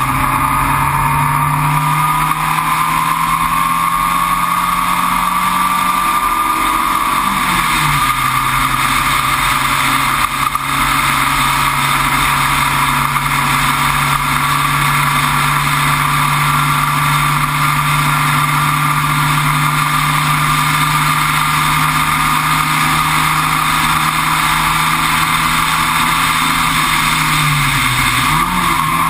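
Entropy sports racer's engine at full throttle, heard onboard: the revs climb, then drop sharply at a gear change about seven seconds in. The engine then pulls steadily, revs creeping up slowly for about twenty seconds. Near the end the revs fall and jump back up in a quick blip, as on a downshift.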